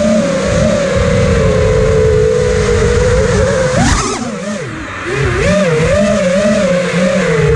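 Camera drone's electric motors and propellers whining, the pitch wavering as the throttle changes. About four seconds in the whine swoops sharply up and back down, then drops quieter for a moment before picking up again, with wind rushing over the camera underneath.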